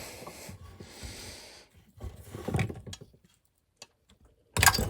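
Metal tools and engine parts clinking and rattling as a small mower engine is taken apart, with a hissing, rustling noise in the first second and a half and a loud clatter of metal near the end.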